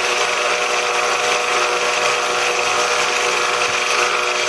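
Belt grinder running steadily while a bayonet blade is ground on its worn abrasive belt, a constant motor hum under an even grinding hiss; the belt is overdue for changing, which makes the grinding slow.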